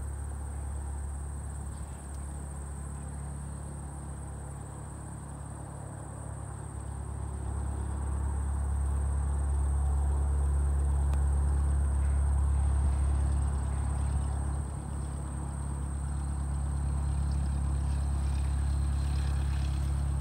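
Light propeller airplane's piston engine running with a steady low hum, growing louder about eight seconds in. Insects, such as crickets, keep up a steady high trill behind it.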